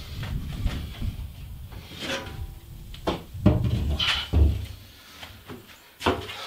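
A sheet of Hardie cement board being handled and set against wooden wall studs: several knocks and scrapes, the loudest between about three and four and a half seconds in, with one more sharp knock near the end.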